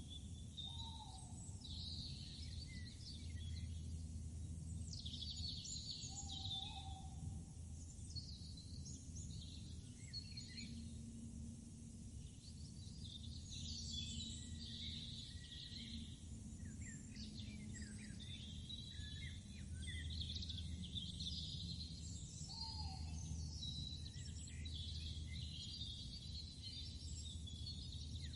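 Outdoor ambience of several birds chirping and singing in short, overlapping calls over a steady low background rumble.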